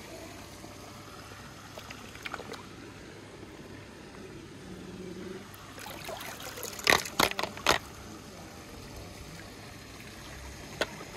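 Swimming-pool water trickling and sloshing as a plastic toy shovel scoops a die-cast toy car out of the water, with a short cluster of sharp splashes and knocks a little past halfway.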